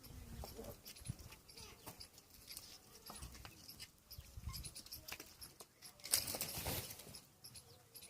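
Peafowl feeding on scattered grain: a run of small sharp pecking clicks, with a louder noisy burst about six seconds in.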